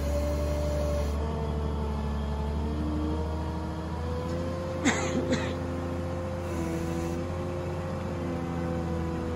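Wheel loader's diesel engine running steadily as it carries a slung boulder, with two sharp knocks close together about five seconds in.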